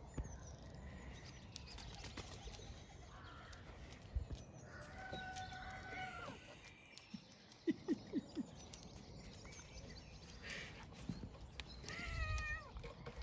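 A cat and dogs playing, with animal calls: a high, drawn-out call about five seconds in, a few short low sounds around eight seconds, and a wavering high call near the end.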